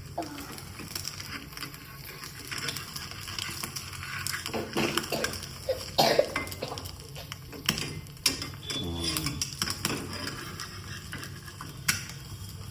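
A cooking utensil scraping and clinking against a frying pan while an omelet fries with a light sizzle; a loud clank about six seconds in and another near the end.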